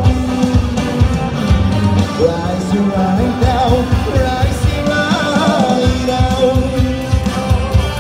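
Live pop-rock band playing through a PA, with singers on microphones over electric guitar, keyboard and a steady drum beat.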